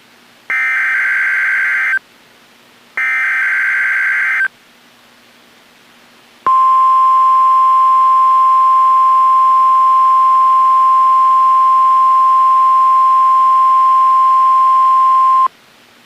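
NOAA Weather Radio emergency alert test signal. First come two SAME (Specific Area Message Encoding) header data bursts, each about a second and a half, a second apart. After a pause of about two seconds, the steady 1050 Hz warning alarm tone sounds for about nine seconds and cuts off sharply.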